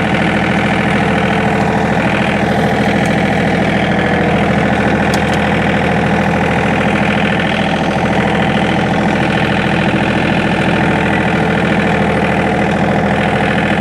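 John Deere 2032R compact tractor's diesel engine running steadily at a constant speed.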